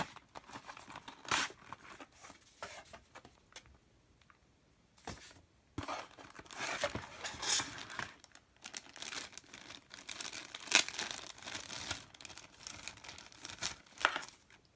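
Packaging being handled: paper and plastic rustling and crinkling, with bits of tearing and small knocks, as the paper guides and bagged cables come out of a small cardboard box.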